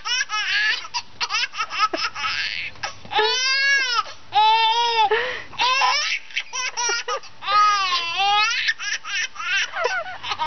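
Baby laughing hard in repeated bursts of high-pitched squeals that rise and fall, with short catches of breath between them.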